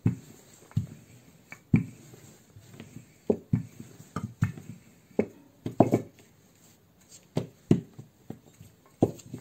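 Wooden rolling pin rolling out a strip of dough on a table: a run of irregular dull knocks and thumps as the pin rolls and bumps against the dough and the tabletop.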